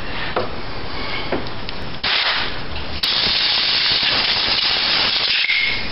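Compressed air hissing from a blow gun from about two seconds in, with a short break a second later, blowing metal shavings out of a freshly drilled bolt hole in an alternator housing.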